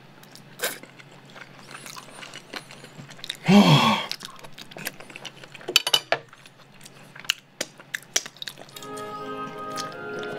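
Close-up eating sounds: chewing and lip smacks with scattered small clicks, and a short hummed vocal sound about three and a half seconds in. Background music with held tones comes in near the end.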